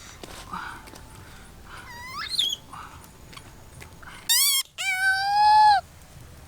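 Dog whimpering and whining: a short rising whine about two seconds in, then a quavering yelp and a longer, louder whine that cuts off a little before the end.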